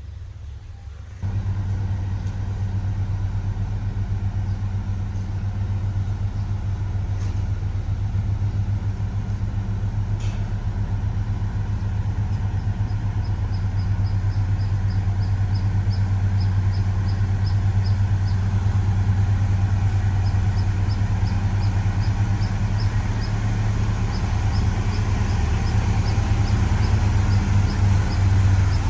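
HD850 motor grader's diesel engine running steadily with a deep, even hum, stepping up in loudness about a second in. Through the second half a light, high ticking comes in runs, about three ticks a second.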